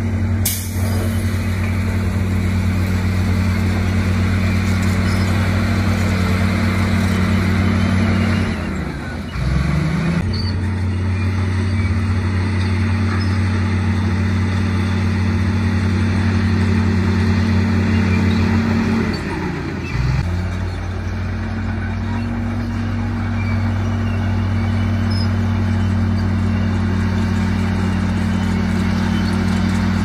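Heavy diesel engine running steadily. Its pitch dips and recovers briefly twice, about a third and about two-thirds of the way through, with a sharp click just after the start.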